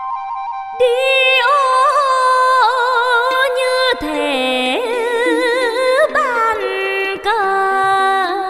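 Vietnamese folk music in chèo style: a flute holds a note, then from about a second in a richly ornamented melody with heavy vibrato and bending turns takes over, over a continuous accompaniment.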